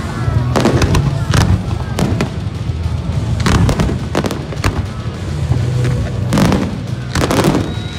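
Fireworks display: aerial shells and water-launched fountains going off in a steady run of sharp bangs and pops, about one to two a second, over a continuous low rumble.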